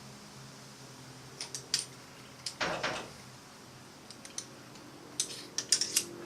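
Light clicks and clinks of small metal objects being handled, with a short scraping rustle about two and a half seconds in and a quick run of clicks near the end, over a low steady hum.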